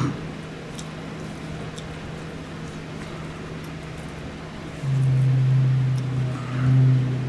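Fork tapping and scraping against a clamshell takeout container while eating, a few faint clicks over a steady low hum. About five seconds in, a much louder low, steady hum starts and lasts around two and a half seconds.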